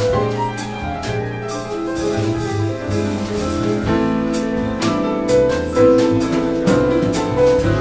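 Live jazz quartet of piano, vibraphone, upright bass and drums playing a blues, the piano prominent over low bass notes, with frequent cymbal strikes from the drums.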